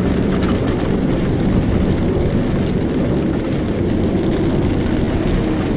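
Propeller aircraft engines running, a dense, steady noise with no break.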